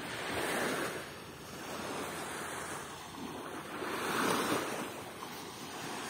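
Waves washing in, rising and fading about every two seconds.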